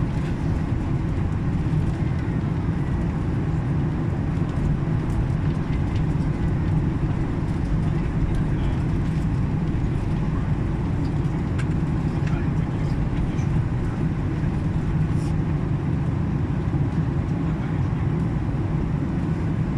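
Airliner cabin noise during descent: a steady low rumble of engines and airflow.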